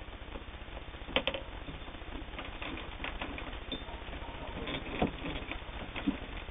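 Singer 301 all-metal sewing machine running, its needle stitching through two layers of heavy split leather: a steady low mechanical hum with scattered sharp clicks, the loudest about a second in.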